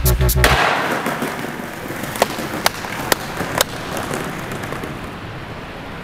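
Skateboard wheels rolling on pavement, a rushing sound that slowly fades, with four sharp clacks between about two and four seconds in. Electronic music cuts off about half a second in.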